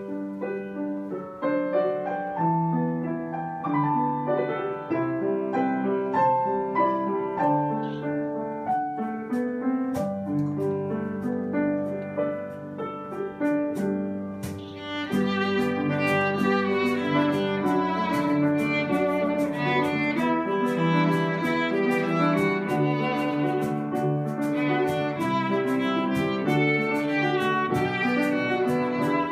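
Live acoustic ensemble: a grand piano plays alone at first, then about halfway through a violin comes in with the melody over the piano, the music growing fuller and louder, with light percussion taps from a cajon.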